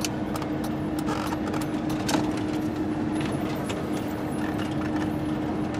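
Motorhome driving slowly, heard from inside the cab: a steady engine hum with one constant tone, and many scattered clicks and rattles.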